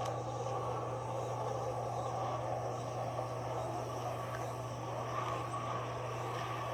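A steady low hum under an even wash of background noise, with no distinct events.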